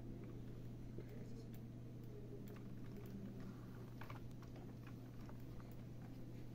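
A few scattered clicks and taps from a computer keyboard and mouse over a steady low hum.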